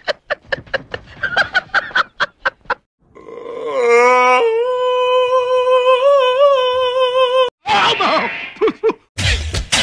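A man laughing in quick, rhythmic bursts, then a single long vocal cry that rises at first and holds steady for about four seconds. Brief voice sounds and music come in near the end.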